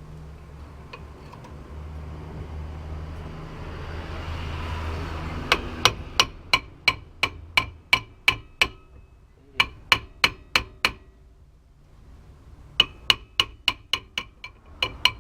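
Hammer striking metal in quick runs of ringing blows, about three a second with short pauses between runs, while the rear wheel bearing of a Ford Escort is knocked loose from the brake drum hub.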